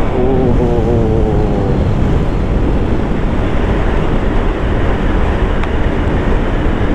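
Motorcycle ridden at speed: heavy wind rush on the microphone over the engine. In the first couple of seconds the engine note wavers and falls slightly, then it is buried under steady wind and road noise.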